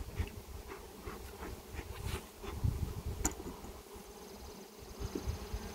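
Honeybees buzzing steadily around an opened hive, with a sharp click a little over three seconds in.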